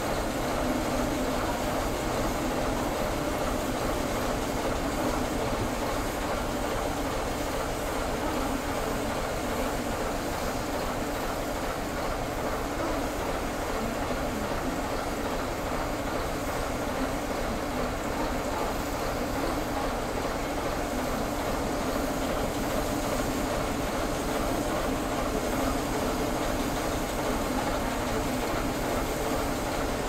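Diesel locomotive engine running steadily, with no change in speed or level.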